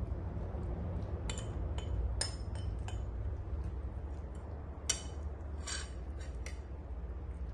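Scattered light clinks and taps of small hard objects, about a dozen, some with a short glassy ring, the sharpest about five seconds in, over a steady low rumble.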